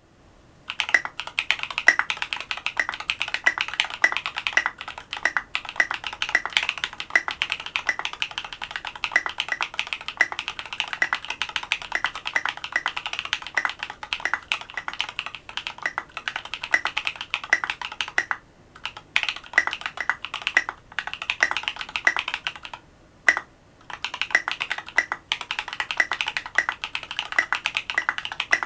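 Fast, continuous typing on a custom mechanical keyboard with lubed Invyr Holy Panda tactile switches, an FR4 plate and SA-profile keycaps. It starts about a second in and stops briefly a couple of times past the middle.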